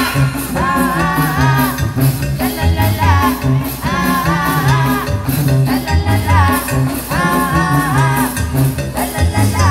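Live Mexican banda playing: a tuba pumps a bass line on a steady beat under melody phrases, with drums and cymbals.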